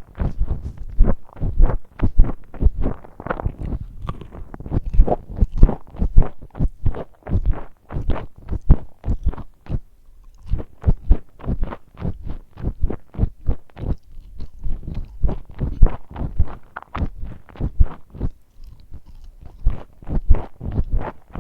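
Close-miked chewing and crunching of fried chicken nuggets and fries, about three crunchy bites a second, with a short lull about halfway through.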